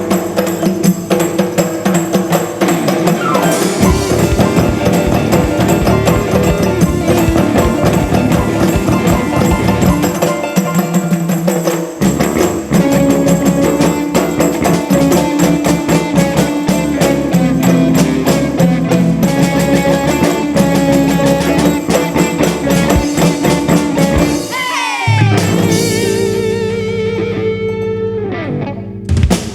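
Live ensemble music: drums and percussion play a dense, driving rhythm under sustained pitched instruments. About five seconds before the end the drums drop out, leaving sliding, bending tones, and a single accented hit closes the passage.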